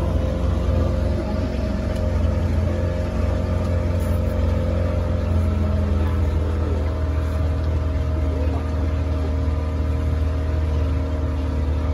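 Motor of a small passenger boat running steadily under way: an even, low engine drone with a faint hiss over it.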